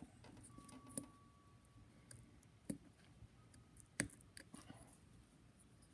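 Faint, scattered clicks of a small steel pick prying and scraping at the old gasket in the metal rim of a Sonora phonograph reproducer, the sharpest click about four seconds in.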